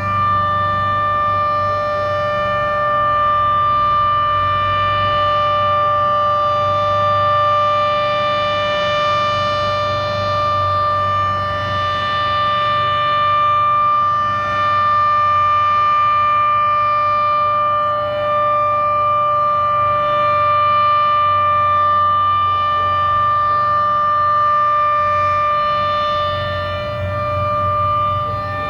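Federal Signal Model 7B outdoor warning siren sounding its steady Alert tone: one unbroken pitch with a stack of overtones, its loudness swelling and easing slowly.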